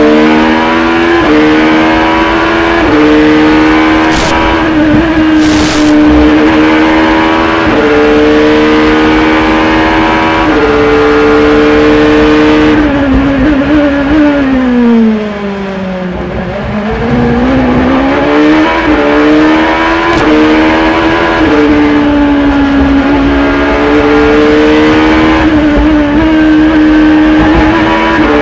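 Acura prototype race car's V8 engine heard on board at full throttle, its pitch stepping up and dropping back with each upshift. About halfway through the engine note falls steadily for about three seconds and goes quieter as the car brakes and downshifts for a slow corner, then it rises again, accelerating and upshifting through the gears.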